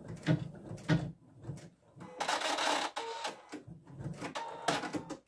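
Computerised embroidery machine (Husqvarna Viking Designer Diamond) after its steady stitching has stopped: a run of short mechanical clicks and brief whirs, with a longer motor whir carrying a steady whine about two seconds in.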